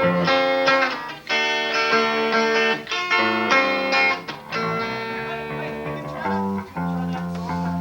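Live rock band playing an instrumental stretch between sung lines: guitar chords that change about every half-second to second, with brief breaks between phrases.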